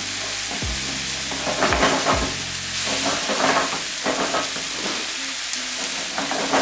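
Onion, tomato and spice masala sizzling in a frying pan as it is stirred, with a spatula scraping the pan in several short strokes.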